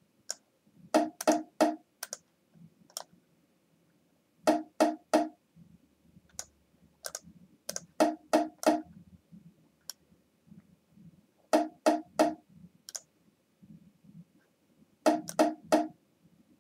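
Bongo loop playing through a low-cut EQ set at about 150 to 170 Hz. Sharp hand strikes come in clusters of three or four about every three and a half seconds, with softer taps between, and the boomy low end is filtered out.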